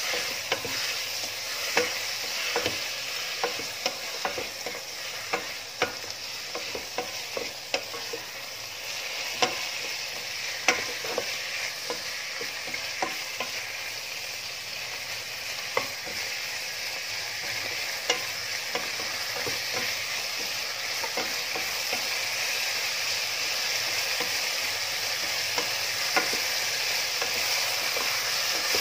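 Chicken pieces sautéing in hot oil with a steady sizzle, stirred with a wooden spatula that knocks and scrapes irregularly against the pot. The sizzle grows a little louder toward the end.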